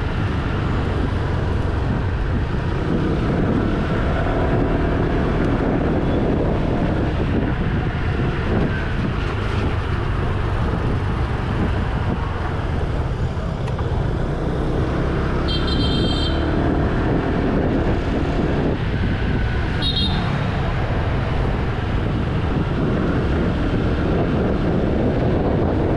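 Honda SH 150 scooter's single-cylinder four-stroke engine running on the move, with steady engine and road noise. Two short, high-pitched beeps cut through, the longer about two-thirds of the way in and a briefer one a few seconds later.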